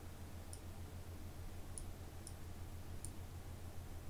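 Four faint computer mouse clicks, spaced irregularly about a second apart, over a steady low hum.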